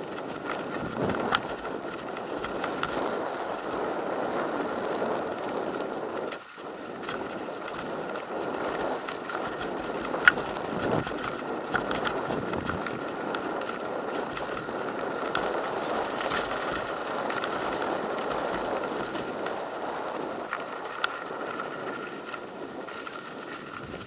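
Mountain bike riding over a loose gravel dirt track: steady tyre noise on the stones and wind on the microphone, with the bike rattling over bumps and a few sharp knocks, the loudest about ten seconds in.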